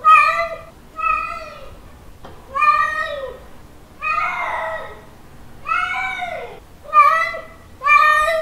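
Male cat's mating call: a string of about seven drawn-out meows, roughly one a second, each rising and then falling away in pitch at its end.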